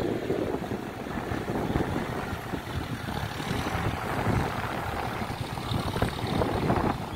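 Distant John Deere 5045D tractor's three-cylinder diesel engine running steadily while cultivating, with wind rumbling on the microphone.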